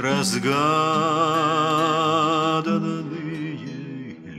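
A singer holds one long note with vibrato for about two and a half seconds, with acoustic guitar accompaniment; after it the guitar goes on more quietly until the next sung word begins near the end.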